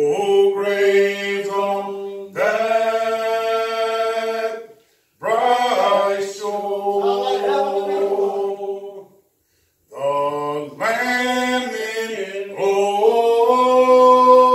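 Hymn singing in long held notes, in three phrases broken by short pauses about five and nine and a half seconds in.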